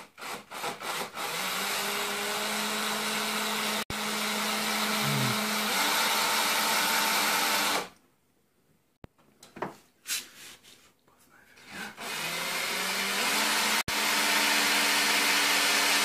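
Interskol cordless drill drilling a small hole through a car's fender for a rivet. A few short trigger blips, then the motor runs steadily for about six seconds and stops; after a few more blips it runs again through the last four seconds.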